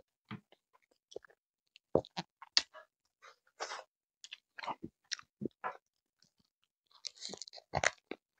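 Close-up chewing of grilled chicken and rice: scattered wet smacks, crunches and mouth clicks, with louder bites about two seconds in and again near the end.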